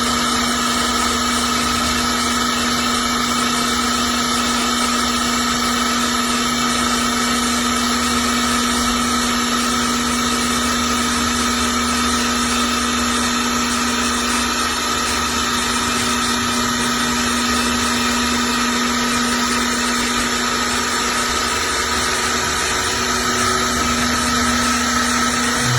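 Electric hydraulic car jack's motor and pump running steadily with an even, constant hum while the jack is run to lower the vehicle.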